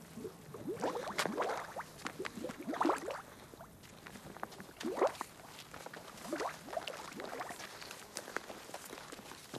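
Footsteps of several people walking on wet, muddy ground, coming irregularly with no steady beat.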